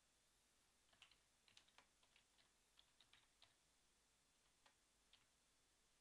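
Faint typing on a computer keyboard: a quick run of keystrokes from about a second in, then a couple of lone key presses near the end.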